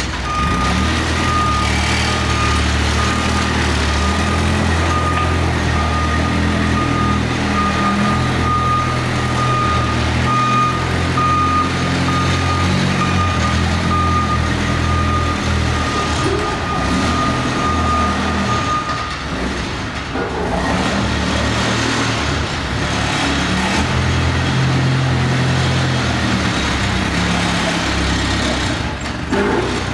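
Diesel engine of a 2006 Donkey truck-mounted forklift running and changing pitch as the machine drives about. A high, steady back-up alarm beeps over it for roughly the first two-thirds and then stops.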